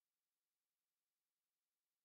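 Near silence: an essentially silent soundtrack.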